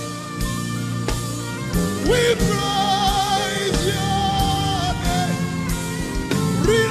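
Live gospel worship band playing: drums, electric guitar, bass and keyboards. A long wavering melody line comes in about two seconds in.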